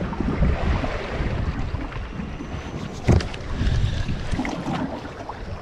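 Wind buffeting the microphone over sea and boat noise, with fabric rubbing close to the microphone. A sharp knock comes about three seconds in.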